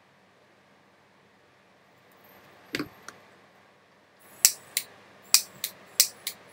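Computer mouse clicking: a pair of sharp clicks about three seconds in, then six quicker, louder clicks over the last two seconds, with no piano notes sounding.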